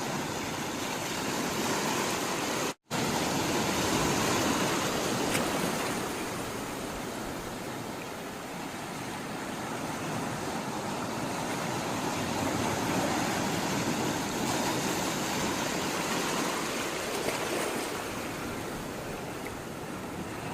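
Sea water rushing and washing continuously, slowly swelling and easing in loudness. About three seconds in, the sound drops out to silence for an instant.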